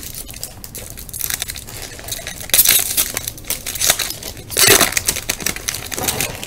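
Foil wrapper of a Topps Prime trading-card pack crinkling and tearing as it is ripped open by hand, with two louder bursts of crackling, about two and a half seconds in and near five seconds.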